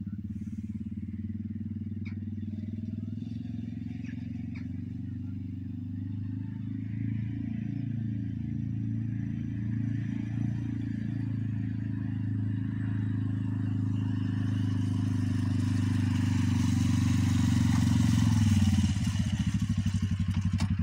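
Quad bike (ATV) engine running as it drives across grass, growing louder as it approaches, then easing off as it slows near the end.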